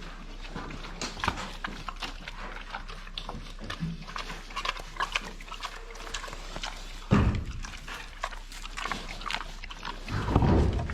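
Pigs grunting in short, irregular bursts, with two loud low rushes about seven and ten seconds in.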